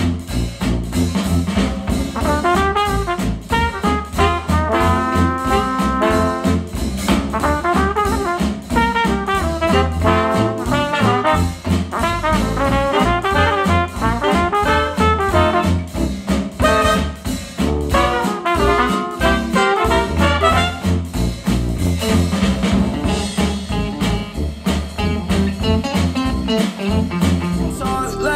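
Retro swing-style jazz with trumpet and trombone over a steady bass beat, played back through Monitor Audio Bronze 100 bookshelf speakers driven by a Cambridge Audio CXA61 integrated amplifier.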